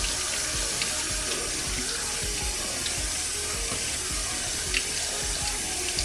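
Kitchen faucet running steadily, its stream splashing through a window air conditioner's plastic mesh filter into a stainless steel sink as the dust is rinsed off the filter.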